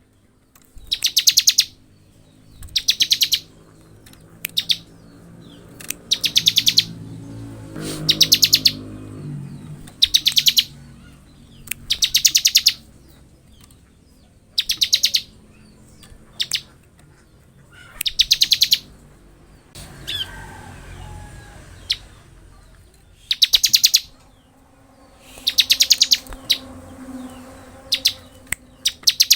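Bar-winged prinia (ciblek) singing in the rapid 'ngebren' style: short, high, fast rattling trills repeated every couple of seconds.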